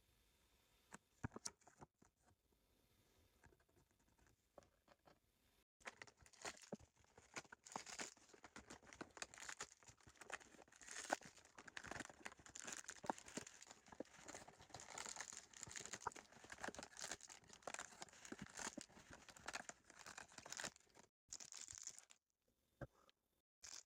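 Toy packaging being torn open and crinkled by hand: a few faint clicks, then a long run of crackling, tearing and crinkling that starts about six seconds in and stops a few seconds before the end.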